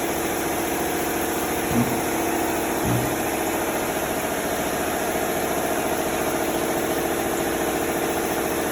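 Dual-action (DA) sander running steadily against primer surfacer on a car body, an even machine whir with a fine rapid flutter. Two short low thumps come about two and three seconds in.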